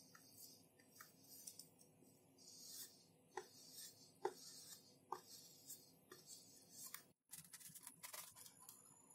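Faint rubbing of a household clothes iron sliding over plastic packing tape on foam board, with a few soft taps; after a brief break near the end, faint scratchy rubbing of the taped foam pieces being handled.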